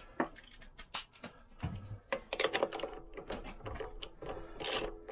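A 27 mm socket and ratchet wrench on the Lambretta's rear hub nut: scattered metal clinks as the socket goes on, then quick ratchet clicking near the end as the nut is run down, not yet torqued.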